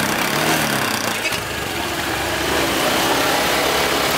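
Motorcycle engines running, their exhaust blowing into balloons held over the tailpipes.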